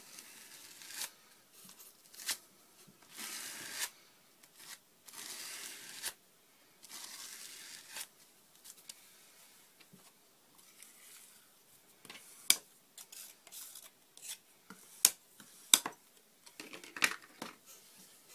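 A plastic card scraping thick structure paste across a paper stencil in several strokes of scratchy rasping, each up to about a second long. In the second half come a few sharp clicks and taps as the paper and stencil are handled.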